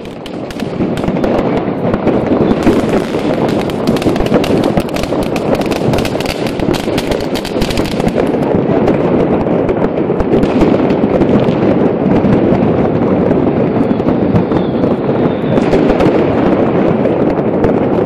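New Year's Eve fireworks and firecrackers going off all around in dense succession. Countless bangs and crackles merge into a continuous loud rattle that builds in the first second and is thickest in the first several seconds.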